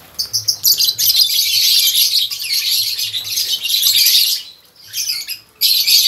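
Many caged lovebirds calling together: a dense run of high-pitched chirps and calls that pauses for about a second near the end, then starts again.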